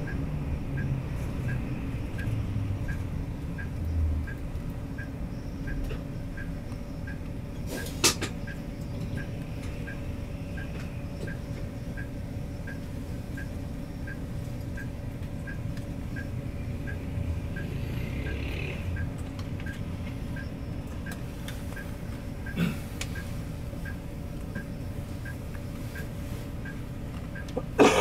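Cabin sound of a Hino S'elega highway coach in city traffic: the diesel engine's low rumble eases in the first few seconds as the bus comes to a halt, then idles steadily. A faint, even ticking runs throughout at about two ticks a second. There are sharp clicks about 8 seconds in and past the 22-second mark, and a louder knock near the end.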